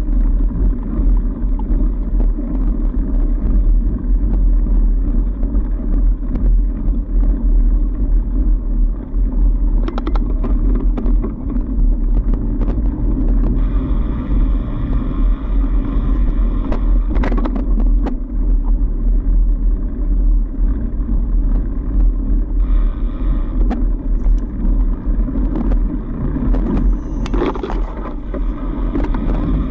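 Trek Farley fat bike rolling along a packed snow trail: a steady low rumble of the fat tyres and wind buffeting the microphone, with a few brief clicks and rattles from the bike.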